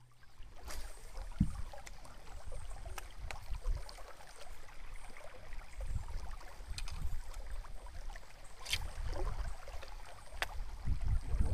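Quiet outdoor ambience aboard a small boat on a river: a low, steady rumble with a few faint clicks and knocks scattered through.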